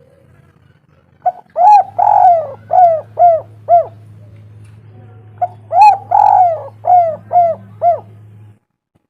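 Spotted dove (tekukur) cooing: two phrases of about six rhythmic coos each, the second phrase starting about five and a half seconds in, with a steady low hum underneath.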